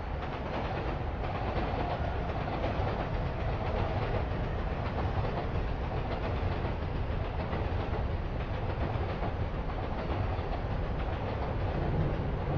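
Steady rumbling street noise at a busy city crossing, with a train running over nearby tracks.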